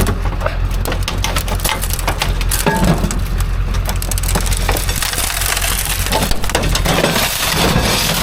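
Scrap metal clattering and crashing continuously, a dense run of irregular impacts, over a steady low engine rumble.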